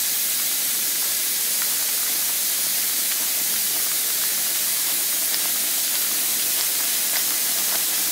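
Stir-fry sauce sizzling in a hot wok as it thickens, a steady hiss with a few small scattered pops.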